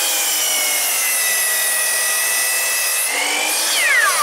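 Hitachi C12LSH sliding compound miter saw running at full speed with a high whine, its blade cutting through a wooden board. The pitch sags about a second in as the blade takes the load, and recovers near three seconds. Near the end the motor is switched off and the whine falls away as the blade spins down.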